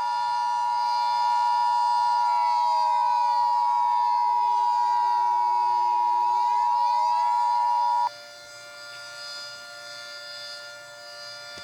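Emergency Alert System attention signal, a loud steady two-tone beep, sounds for about eight seconds and cuts off suddenly. Under it a siren wails: its pitch sags down and swings back up midway, and it carries on alone, quieter, after the beep stops.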